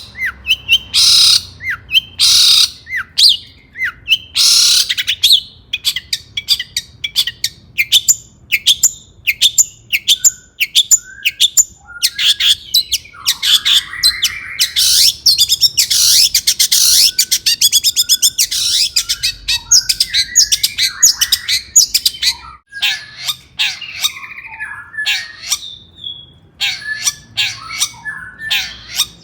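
Long-tailed shrike (cendet) singing loudly in a fast, dense run of sharp chirps, mixed with harsh rasping notes near the middle.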